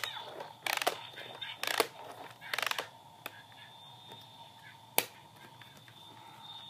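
Plastic toy exterminator being handled and worked: four short, buzzy rattling bursts of rapid clicks about a second apart, then a single sharp click about five seconds in.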